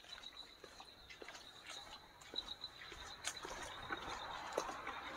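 Footsteps on a stone-slab trail: faint, irregular scuffs and taps, with a thin steady high-pitched tone in the background.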